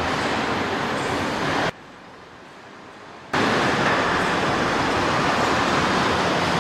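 Steady rushing noise like machinery or traffic. It drops away abruptly for about a second and a half, then comes back a little louder.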